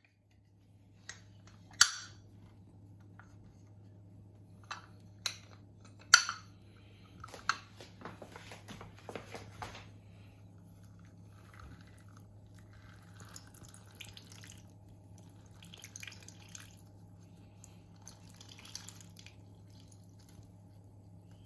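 Kitchen preparation sounds: a few sharp clinks and knocks in the first eight seconds, then a quick run of small clicks and softer scraping and rustling, over a steady low hum.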